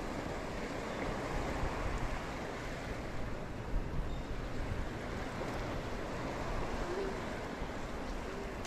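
Steady rushing of waves and wind at the shoreline, with a low rumble and no distinct events.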